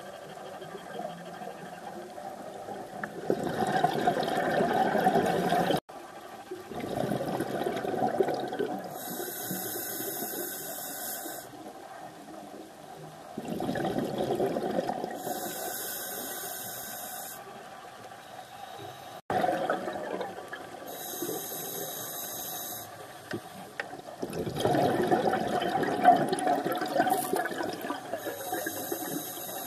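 Scuba regulator breathing underwater: a gurgling rush of exhaled bubbles alternating with a higher hiss of the inhale, the cycle repeating about every six seconds. Two sudden brief dropouts break it.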